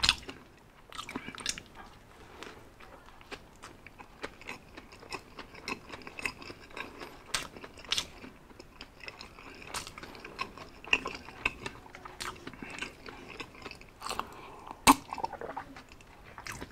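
A person chewing a mouthful of Big Mac burger: a steady run of small wet mouth smacks and clicks.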